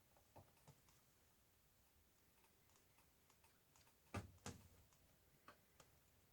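Faint scattered clicks and taps of a laptop being handled, with two louder knocks about four seconds in, a third of a second apart.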